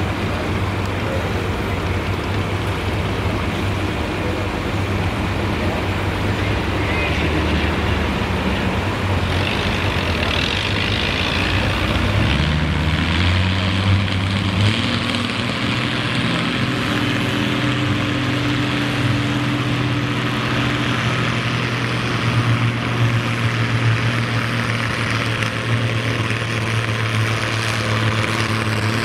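Oliver Super 77 pulling tractor's engine running hard against a weight-transfer sled, its pitch rising about twelve seconds in and then holding higher as the pull gets under way.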